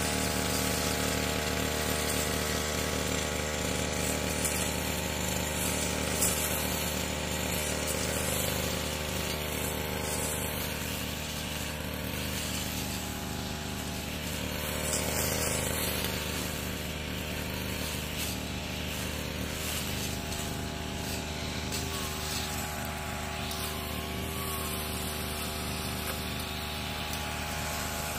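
Two-stroke engine of a Yamamax 338 Pro grass cutter running at a steady speed.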